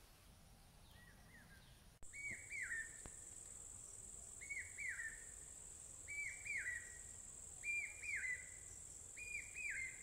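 Dusk ambience: a steady high insect trill starts abruptly about two seconds in, while a bird repeats a two-note call, each note rising then falling, about every second and a half. The calls are the loudest sound.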